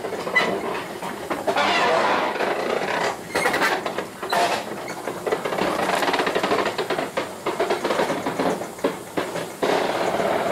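1915 Baldwin 0-6-2T tank steam locomotive rolling slowly, heard from the cab. Its wheels and running gear make a steady noise broken by irregular clanks, knocks and rattles.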